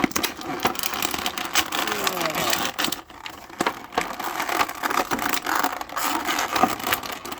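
Plastic action-figure packaging crackling and clicking as the figure is worked out of its clear plastic tray, with a few short plastic squeaks about two seconds in.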